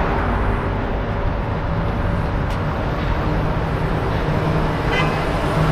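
Steady road vehicle and traffic noise, with a low hum that sets in about a second and a half in.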